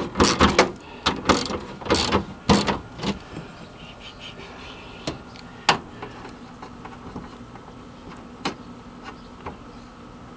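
Metallic clicks and knocks of hand work on a van's rear-door latch hardware: a quick run of them in the first few seconds, then a few scattered single clicks.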